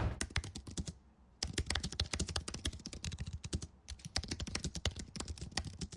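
Rapid typing on a computer keyboard, a quick run of key clicks that pauses briefly about a second in and again about two-thirds of the way through.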